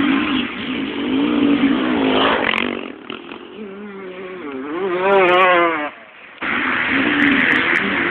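125 cc two-stroke motocross bike engines revving hard, the pitch climbing and dropping with throttle and gear changes. About six seconds in the sound drops away briefly, then comes back just as loud.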